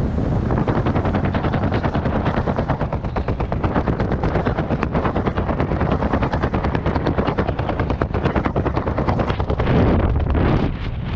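Fabric flapping hard in the airstream of a skydive, a fast, steady rattle of many flaps a second, over heavy wind rush on the helmet-camera microphone.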